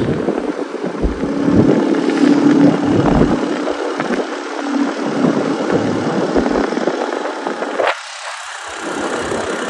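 A motorbike's engine runs as it rides along a road, with wind and road noise rushing over the microphone. The sound eases off about eight seconds in.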